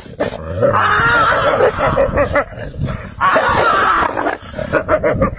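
A large dog and wolves growling in a fight, in two long bouts, the second starting about three seconds in.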